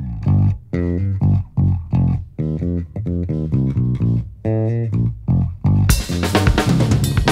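Electric bass guitar playing a solo jazz-funk riff of short, separated notes. A drum kit comes in near the end.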